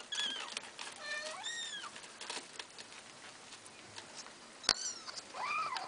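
Month-old Maine Coon kittens mewing: a few high-pitched mews that arch up and fall away, near the start, around a second in and again near the end. Scattered small clicks run under them, with one sharp click just before the last mew.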